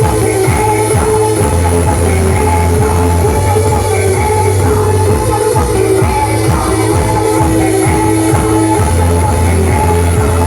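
Loud music with singing and a heavy, steady bass, played through a large loudspeaker sound system.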